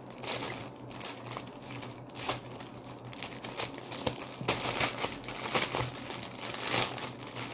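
Clear plastic bag crinkling and rustling in irregular crackles as it is handled and pulled open by hand.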